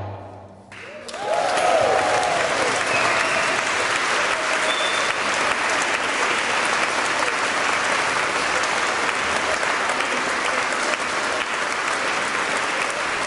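An audience applauding steadily after the music stops, the clapping starting about a second in, with a few voices calling out near the start.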